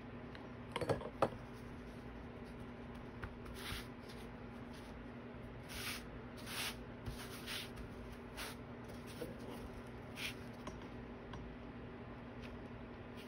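Hands rubbing and pressing fabric down onto a styrofoam disc: a series of short, soft rustles. A few light clicks and knocks about a second in, with a steady low hum underneath.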